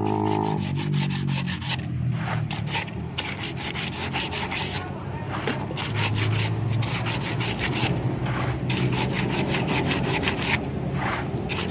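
Sandpaper rubbed back and forth on a steel rear axle shaft in quick, repeated rasping strokes. It is polishing the scoring lines off the shaft's seal running surface, the wear that made the axle seal leak.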